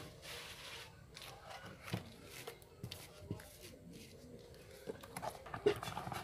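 Hands rummaging through a cardboard box of loose batteries: a rustle of cardboard near the start, then irregular clicks and knocks as the cylindrical cells and battery packs are picked up and knock against each other and the box.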